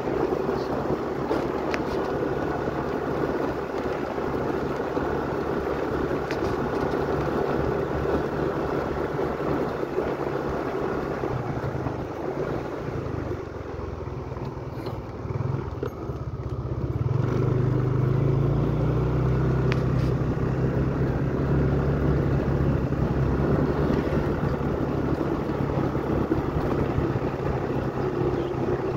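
Small motorcycle engine running steadily while riding. It eases off about halfway through, then picks up louder again as the bike pulls away.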